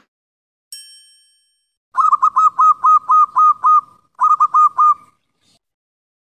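Channel-intro sound effects: a single bright chime, then a quick, even run of short identical pitched blips, about five a second, a brief pause, and four more.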